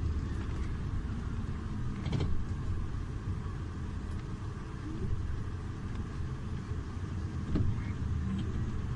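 Iveco Urbanway 12 Hybrid city bus idling at a stop, a steady low rumble. Two short sharp knocks cut through it, about two seconds in and again near the end.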